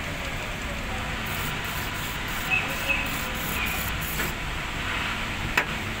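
Steady low rumble of a running engine with a hiss over it, and a few sharp clicks from handling metal parts about two and a half seconds in and again near the end.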